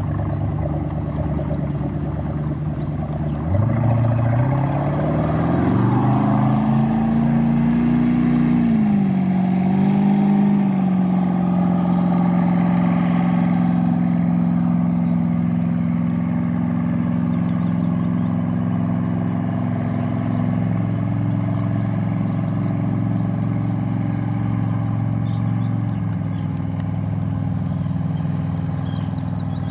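Baja 240 speedboat's V8 engine running slow, then about three and a half seconds in the throttle opens and the engine note rises in pitch and loudness for several seconds, dips briefly, and settles into a steady run at speed.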